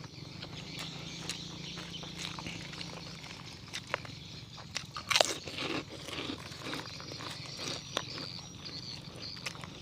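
Close-up chewing and biting while eating chicken with sambal: irregular sharp crunches and mouth clicks, the loudest bite about five seconds in.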